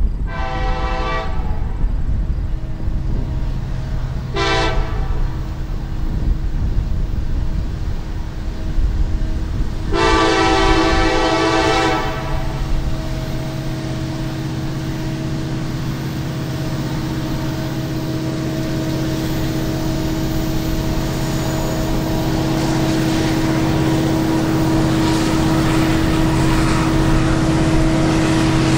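Diesel locomotive air horn sounding three chord blasts, long, short, long, a crossing signal from an approaching freight train. After that the locomotive's engine hum grows slowly louder as the train draws near.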